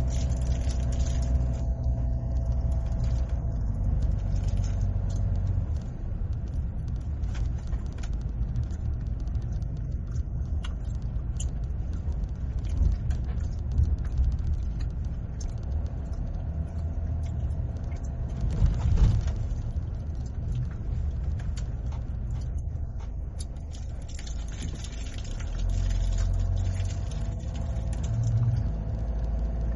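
Car driving on a road: a steady low rumble of engine and tyres, with small rattles and clicks throughout and one louder knock about two-thirds of the way through.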